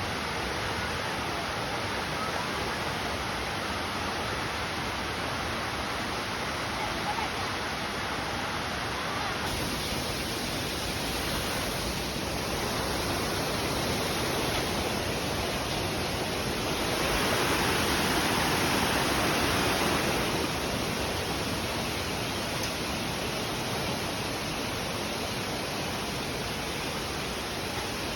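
Waterfall: a steady rush of falling water, swelling a little louder for a few seconds past the middle.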